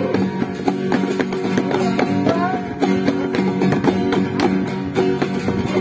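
Several acoustic guitars and a small ukulele strumming chords together in a steady rhythm.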